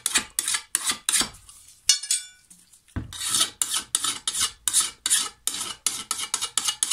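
A flat hand file rasping across the back of a steel lawn mower blade in quick strokes, about four a second, held flush to take off smashed and folded-over metal from the edge. The filing breaks off about a second in, then a single metallic clink rings out, and the strokes resume about three seconds in.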